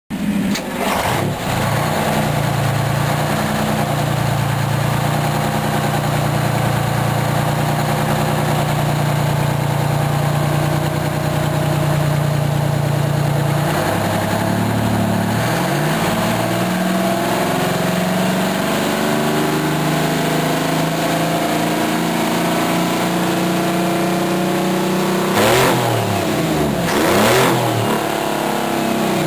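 Detroit Diesel 12V-71 two-stroke V12 diesel of a 1974 Kenworth running: a steady idle for about the first half, then the pitch shifts and climbs as the engine is revved up. Two brief bursts of noise near the end.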